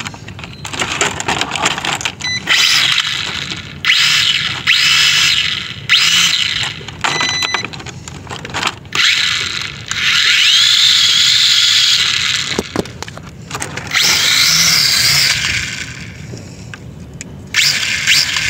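Small toy quadcopter's electric motors and propellers spinning up in a series of bursts of a second or two each, a high whirring whine that rises and falls with the throttle. A single sharp click about two-thirds of the way through.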